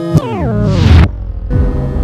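Synthesizer music: a chord of notes slides downward in pitch under a swelling whoosh, cuts off abruptly about a second in, and gives way to a low drone.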